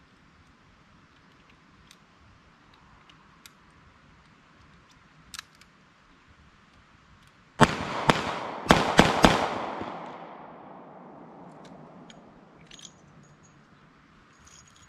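Taurus Model 85 .38 Special revolver firing mild 158-grain lead round-nose handloads: a quick string of about five shots in under two seconds, each ringing out and echoing for a few seconds after the last. A few light clicks from loading the revolver come before the shots.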